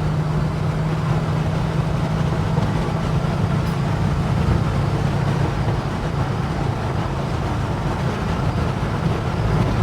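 Holden HK's 253 V8 engine pulling hard under acceleration through an overtake, with steady tyre and road noise. Its steady low drone gives way to a rougher sound about halfway through.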